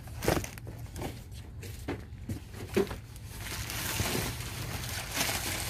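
Plastic packaging bags rustling and crinkling as hands dig through a box of items, with a few short taps and knocks of cardboard in the first half.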